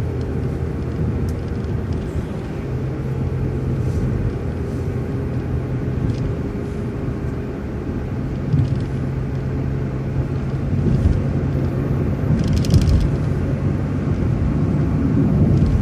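City transit bus running along the road, heard from on board: a steady low engine hum with road noise, and a brief cluster of rattling clicks about twelve and a half seconds in.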